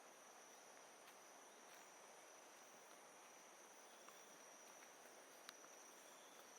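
Faint tropical jungle ambience: a steady high-pitched insect drone over a soft, even rush of distant flowing water, with a couple of small clicks in the second half.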